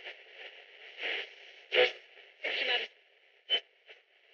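Roberts portable radio hissing with static between stations, with short snatches of voices breaking through as it is tuned; the hiss fades about three seconds in, leaving a couple of brief blips.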